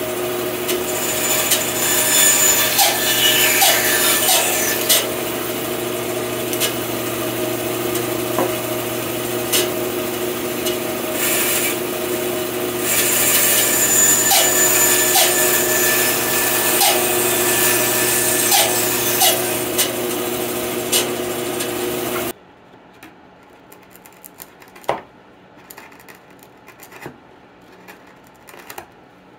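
Bandsaw running with a steady motor hum, its blade cutting through a sassafras board, the cutting noise swelling and easing as the wood is fed. About 22 seconds in it cuts off suddenly to quiet, with a few light taps and scrapes of a chisel paring waste from a dovetail joint.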